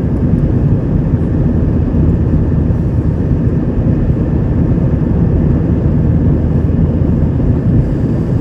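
Steady low rumble of an Airbus A321's jet engines during its departure climb.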